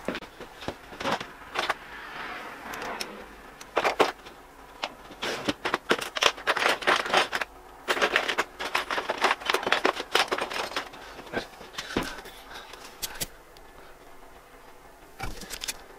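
Irregular clicks, taps and short rattles of hands handling small tools and a lighter, which is then lit and held to heat-shrink tubing over a wire.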